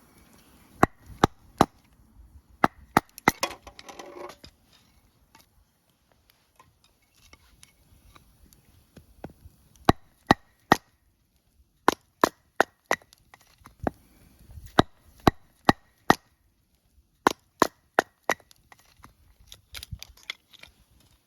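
Wood being chopped into kindling with a hatchet or knife: sharp strikes in quick runs of two to four, repeated. A short splintering crackle comes about three seconds in.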